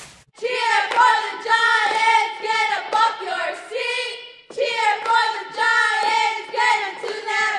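A group of cheerleaders chanting a cheer in unison in a sing-song rhythm: "Cheer for the Giants, get up off your seat, cheer for the Giants, get into that beat." There is a short pause between lines about halfway through.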